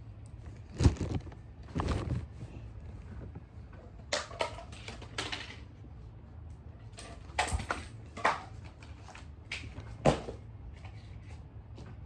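Irregular knocks, clicks and short rustles of objects being handled, over a low steady hum.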